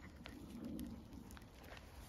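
Faint crunching steps on a gravel track, with a soft low sound lasting under a second about half a second in.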